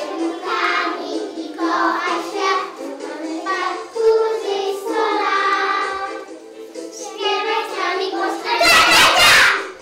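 A group of young children singing together over a recorded backing track. A short, loud burst of noise cuts in about nine seconds in.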